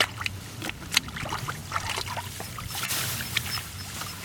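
Muddy water sloshing and splashing in uneven bursts, with scattered sharp clicks and knocks.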